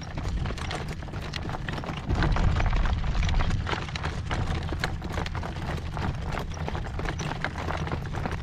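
A horse's hooves clip-clopping in a steady footfall rhythm as it is driven, with strong wind buffeting the microphone. The wind gets louder about two seconds in.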